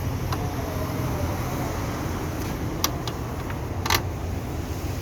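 A steady low rumble with a few short, sharp clicks and knocks from tools and parts being handled during work on a car.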